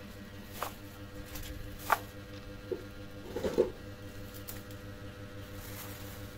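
A few short clicks and knocks, the loudest about two seconds in and a quick little cluster about three and a half seconds in, over a steady low hum.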